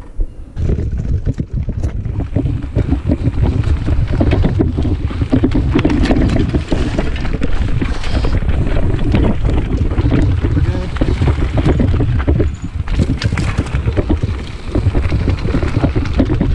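Mountain bike riding a dirt trail: wind buffets the camera microphone in a heavy rumble, over many quick rattles and clicks from the bike and its tyres running over dirt, roots and sticks. The rumble eases briefly about three-quarters through.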